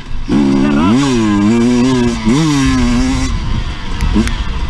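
Husqvarna enduro motorcycle engine revving hard under acceleration, its pitch climbing steeply twice and holding, then dropping away as the throttle closes about three seconds in, with a short throttle blip just after.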